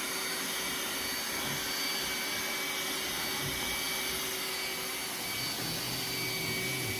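Roomba S9 robot vacuum running steadily on a deep shag rug: an even suction-motor noise carrying a few steady tones, one low and two high.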